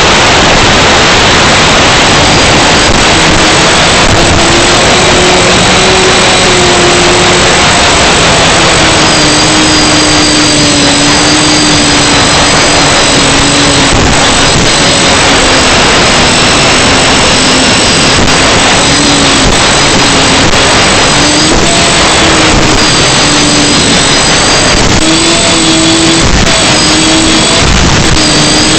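FPV quadcopter's motors and propellers buzzing, the pitch wandering up and down with the throttle, under a loud steady hiss.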